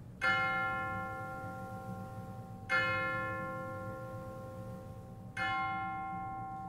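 A bell struck three times, about two and a half seconds apart, each strike ringing on and slowly fading, over a low steady hum.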